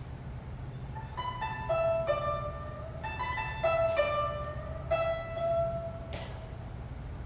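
Guzheng ensemble playing a phrase of plucked, ringing notes, quiet for about the first second, then a run of notes that fades out near six seconds. A steady low hum runs underneath.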